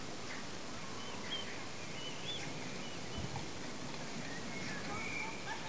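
Mute swan cygnet giving a few faint, short, high peeps, each rising and falling, over a steady outdoor hiss.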